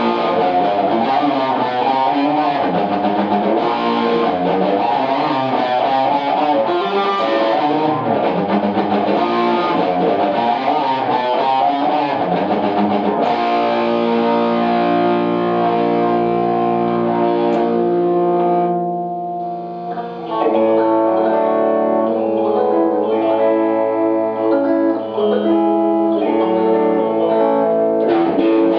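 Electric guitar played through a Vox AC30 amplifier. The first half is busy, quickly changing notes; from about halfway it plays held, ringing chords, with a short drop in level about two-thirds of the way through.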